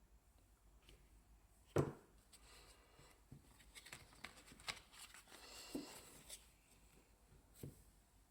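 Oracle cards being handled and flipped by hand: light clicks and rustles of card stock, with one sharp tap about two seconds in.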